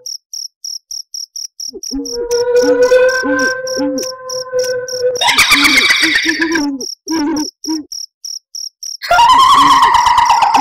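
Horror sound-effect track: crickets chirp steadily while an owl hoots in a low repeated call over a held eerie tone, and a long, shrill cackling woman's laugh, the kuntilanak ghost laugh, breaks in about five seconds in and again near the end, the loudest part.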